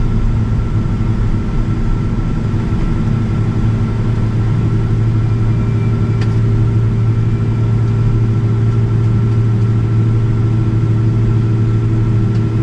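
Steady engine and airflow hum inside a Boeing 777-200ER's cabin: a strong low drone with a few steady tones over it, unchanging throughout.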